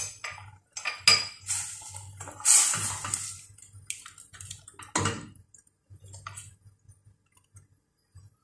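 A spatula stirring chicken in coconut milk in a stainless steel pot, knocking and scraping against the pot: a sharp clink at the start, scraping for a couple of seconds, and another knock about five seconds in.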